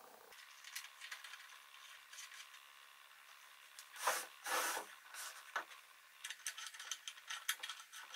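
Hand-handling noises of a pine mirror frame at its pivot: small clicks, taps and scraping of wood and metal as the metal adjustment knob is fitted, with two louder rubbing strokes about four seconds in.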